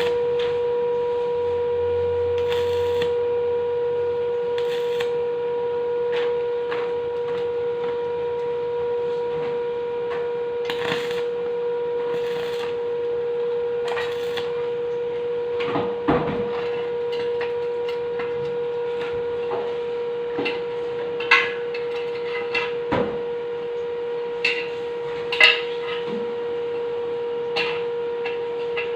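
Steady mid-pitched hum from an electric welding machine, with scattered metallic clinks and knocks; the sharpest knocks come about 21 and 25 seconds in.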